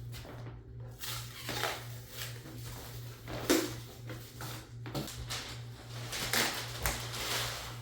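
Packing material being handled and pulled off a boxed refrigerator: irregular rustling and scattered knocks, over a steady low hum.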